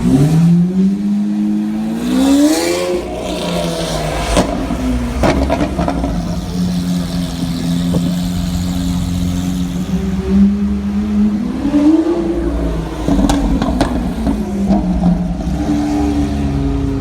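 Lamborghini Aventador's V12 with a Capristo exhaust revving up briefly, then running steadily at low revs with a few sharp exhaust crackles. The revs rise again about twelve seconds in.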